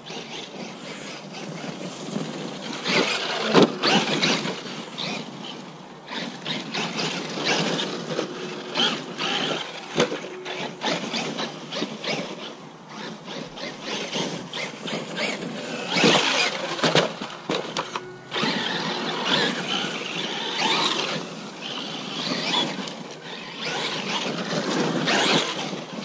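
Traxxas Maxx RC monster truck running over dirt and leaves: motor and drivetrain noise with crunching tyres, coming in uneven bursts as the throttle comes on and off, loudest about four seconds in and again around sixteen seconds.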